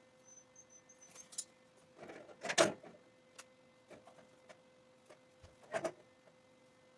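Scattered clinks and knocks from tools and parts being handled, the loudest about two and a half seconds in and another near six seconds, over a faint steady hum.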